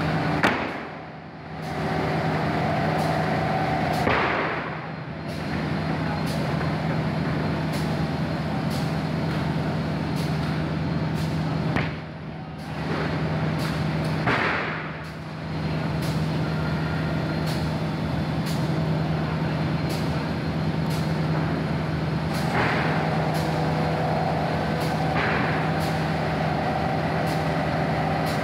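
Plywood sanding machine running with a steady hum. A few short rushing surges of noise break in, about five in all, as sheets are worked through it.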